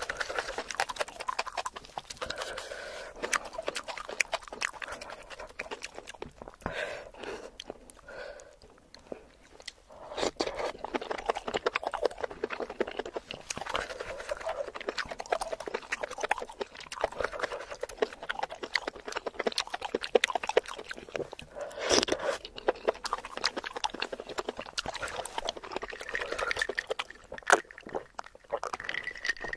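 Close-miked wet chewing and slurping of enoki mushrooms in a spicy broth: a dense run of small wet mouth clicks and smacks, with a short lull about a third of the way through.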